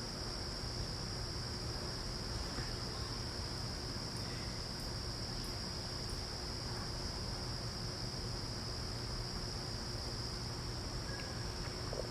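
Steady, unbroken high-pitched insect trill over a low background rumble.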